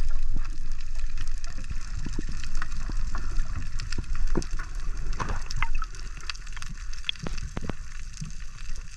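Muffled underwater sound heard through a camera housing while diving: water rushing and gurgling past, with scattered sharp clicks and crackles. It eases off for the last few seconds.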